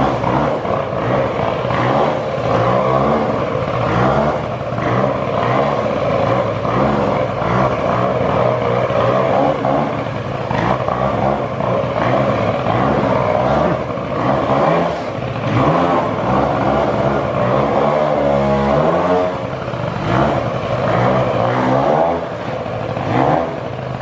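Two-stroke moped engine revving hard and easing off again and again while the scooter is held in wheelies, its pitch rising and falling repeatedly.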